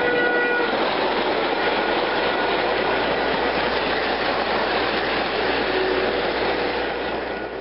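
G-scale model train rolling right past the microphone: a steady, loud noise of its wheels running on the track.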